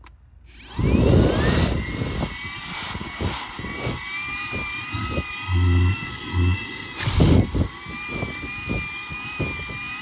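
Foppapedretti cordless stick vacuum switched on at its higher power setting: the motor's whine rises as it spins up about a second in, then runs steady. Frequent crackles and scrapes come from grit being sucked up and the crevice tool rubbing on car floor carpet.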